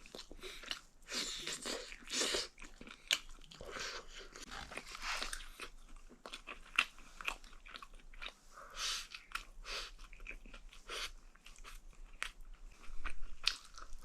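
A person chewing braised chicken pieces close to the microphone: crunching bites of chicken that seems to have been deep-fried first, with many short mouth clicks and smacks.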